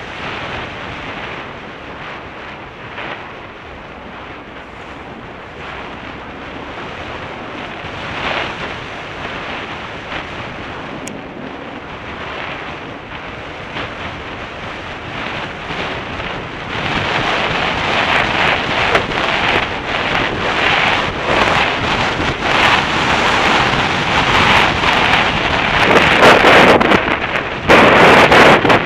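Wind rushing over the microphone of a camera riding on a motorcycle along a dirt track. It gets louder a little past halfway and is heaviest in gusts near the end.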